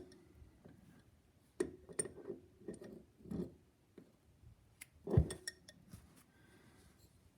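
Crescent wrench clinking and tapping against a toilet water supply line fitting as the nut is tightened down: a scattered series of short clinks, with a louder knock about five seconds in.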